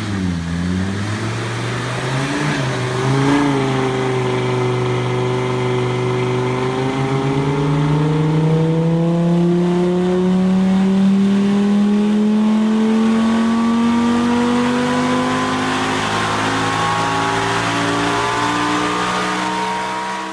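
Audi car engine under hard acceleration. Its pitch dips in the first second, then climbs slowly and steadily for about sixteen seconds without a gear change.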